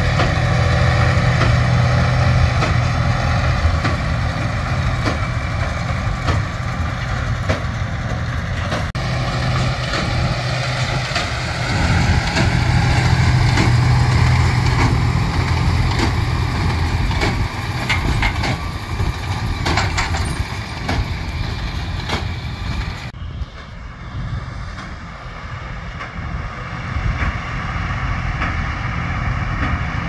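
Fendt 939 tractor's six-cylinder diesel engine running steadily under load as it pulls a New Holland 1290 large square baler baling straw, with short knocks from the baler's works. It grows fainter in the last third.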